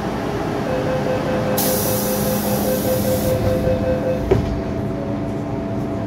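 MTR M-Train passenger door closing: a rapidly pulsing door-closing warning tone for about three seconds, with a hiss partway through, then a sharp thud as the door shuts about four seconds in. A steady hum from the train follows.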